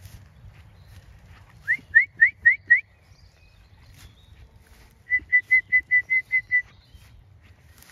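A person whistling to call a flock of ewes in: five quick rising whistle notes, then after a pause of about two seconds a fast run of about nine short notes on one pitch.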